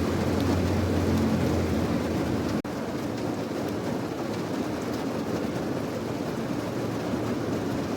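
Steady heavy rain with a low rumble underneath for the first few seconds. The sound drops out for an instant about a third of the way in, then the rain continues without the rumble.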